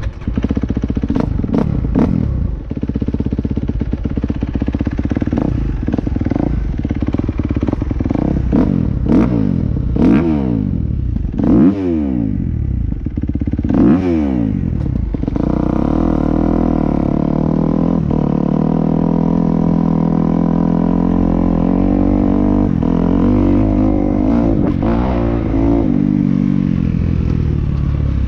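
Motocross bike engine catching and running, with several quick throttle blips that rise and fall sharply in the first half. From about halfway it settles into a steady, even note as the bike rides off.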